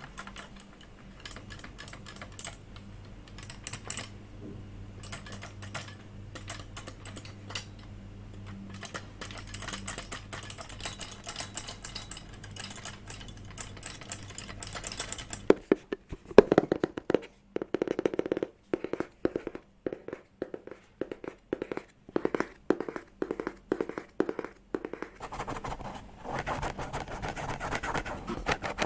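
ASMR tapping triggers. For about the first half there are quick, light, crisp taps and clicks; from about halfway there are louder, hollower knocks at roughly two a second. Near the end these give way to a softer, steady scratching sound.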